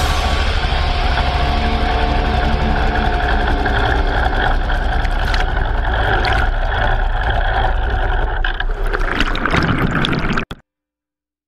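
Race boat's engine running steadily at speed, with rushing water and spray over it; the sound cuts off suddenly near the end.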